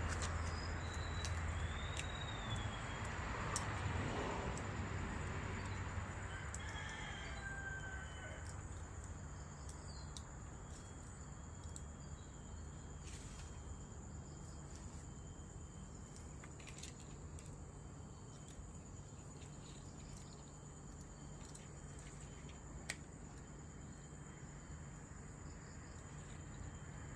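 Bird calls with short gliding and arching notes during the first several seconds, over a steady outdoor background with a thin high-pitched tone and a low hum. Scattered light clicks follow, with one sharper click near the end.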